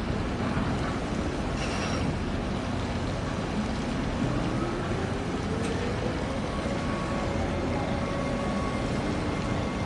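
Steady low engine rumble, with a fainter engine note that rises in pitch from about three and a half seconds in and then holds level.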